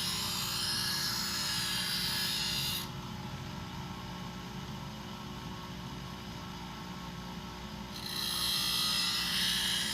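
Bench grinder running, with a thickness planer's steel blade ground against the wheel in a loud high hiss; about three seconds in the grinding stops for some five seconds while the motor keeps humming, then the blade goes back on the wheel near the end.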